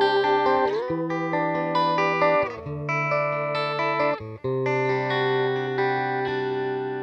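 Electric guitar playing sustained chords through a pedalboard, with a Boss PH-2 phaser set to low depth giving a subtle phase sweep. The chord changes about a second in, again around two and a half seconds in, and once more just after four seconds, after a brief break.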